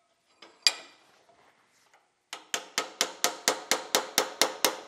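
A single metallic clink, then from a little before halfway a fast run of hammer blows on steel, about five a second, each one ringing. The blows are knocking a torch-cut bearing race off the crankshaft of a Koender's windmill compressor clamped in a vise.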